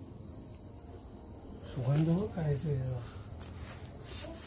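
Crickets chirping in a steady, high, evenly pulsing trill. A person's voice speaks briefly about two seconds in.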